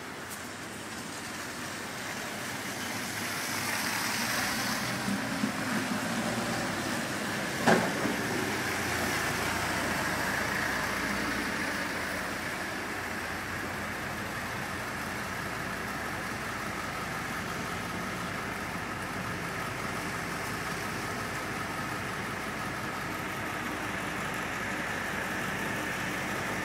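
Steady running noise of a motor vehicle, with one sharp knock about eight seconds in.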